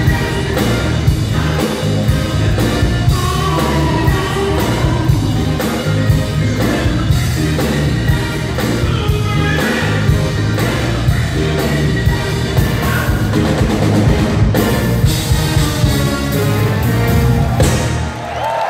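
Live band playing an upbeat rock-style song with a drum kit beat and a singer. The music stops abruptly near the end.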